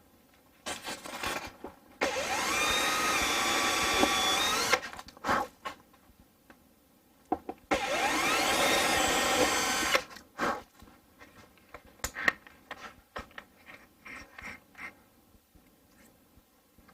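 Power drill running in two main bursts of about three and two and a half seconds, its pitch rising as it spins up and then holding steady, with a shorter burst just before; light clicks and knocks follow.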